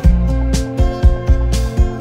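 Background music with a steady drum beat, a bass line and held instrument notes.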